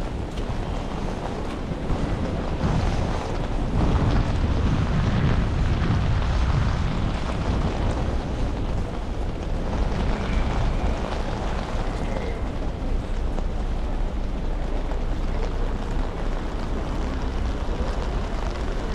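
Wind buffeting the camera's microphone, a low rumble that swells about three seconds in and eases after about seven, over a steady hiss of rain and wet surroundings.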